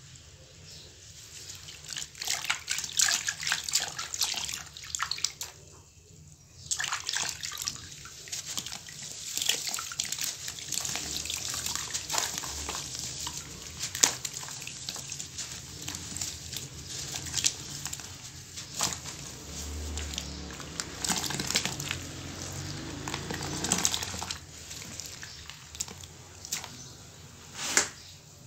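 Hands squeezing and crumbling wet sand-and-cement clumps in a shallow tray of water: dense crackling and crunching with splashing and dripping, broken by a short pause about six seconds in.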